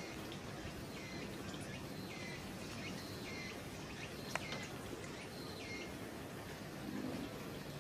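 A bird repeats a short, falling chirp roughly once a second over a steady outdoor background hiss. A single sharp click comes about four seconds in.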